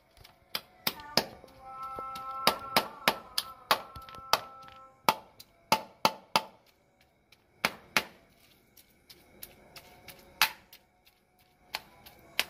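A steel spoon clinking and scraping against a steel bowl while mixing food, in irregular sharp clicks about one to two a second that thin out in the second half. A steady ringing tone holds for a few seconds near the start.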